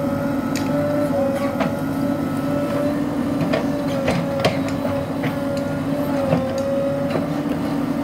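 JCB 3DX Super backhoe loader's diesel engine running steadily while the backhoe arm digs, with a steady high whine that dips slightly in pitch now and then. Sharp clanks and knocks from the bucket and arm linkage come at irregular moments.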